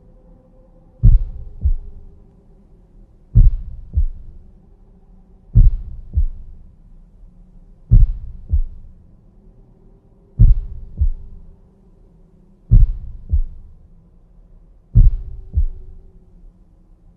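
Normal heart sounds in a slow, even rhythm: seven lub-dub beats, each a louder, lower first sound (closure of the mitral and tricuspid valves) followed about half a second later by a shorter second sound (closure of the aortic and pulmonary valves).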